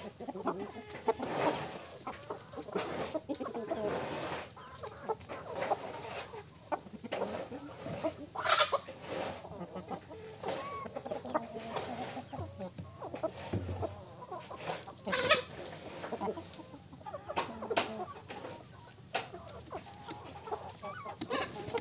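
A flock of domestic chickens and roosters clucking as they peck at scattered feed, in many short, irregular calls, with two sharper, louder sounds partway through.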